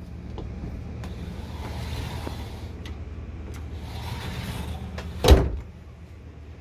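Mirrored sliding closet door being slid along its track, with a single sharp knock about five seconds in, over a steady low hum.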